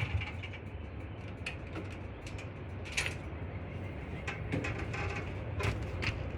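A Rippa Mule Trac mini excavator's gas engine drops suddenly from loud running to a low, quiet hum with scattered light clicks, going in and out as if running out of fuel. The owner traced this to debris in the tank and air in the fuel line.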